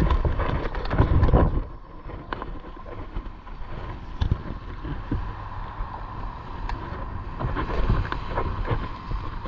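Wind buffeting an action camera's microphone over sloshing sea water, loudest in the first second or so, with scattered knocks and a faint steady high tone throughout.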